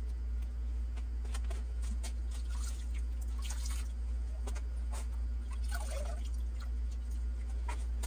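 Water dripping and squelching from a soaked cloth rag as it is squeezed and packed around a Mauser rifle bolt in a vise, in irregular drips and squishes. A steady low hum runs underneath.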